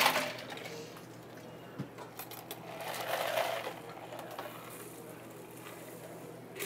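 Metal cocktail shaker tin and ice: a sharp clatter right at the start, then a rattle of ice about two to three and a half seconds in, before the shaken cocktail is quietly poured through a fine-mesh strainer into a glass. A steady low hum runs underneath.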